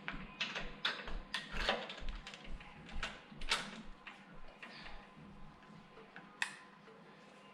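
Irregular clicks and knocks of parts being handled on a small snowblower, closely spaced at first and thinning out after about four seconds, with no engine running.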